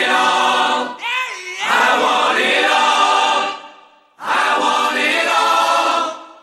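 Choir-like singing of sustained notes, with a sliding swoop in pitch about a second in. It fades out around three and a half seconds in and comes back half a second later.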